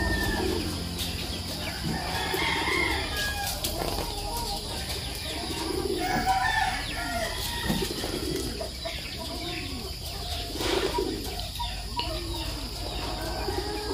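Domestic chickens clucking, short low calls coming about once a second, with higher chirps mixed in.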